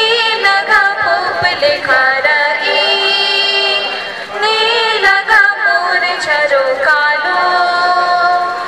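Girls singing a song together into microphones, amplified over a public-address system, with long held notes.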